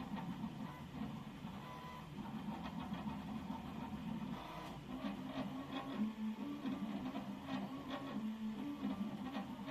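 Mechanical rattling: irregular short clicks and knocks over a steady low running hum.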